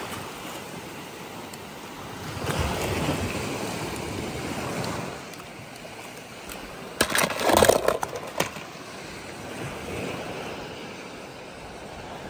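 Water sloshing, with a louder burst of splashing about seven seconds in.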